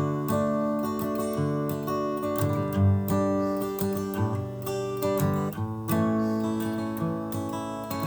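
Acoustic guitar strumming chords at a steady rhythm: the instrumental intro of a folk song, before the vocals come in.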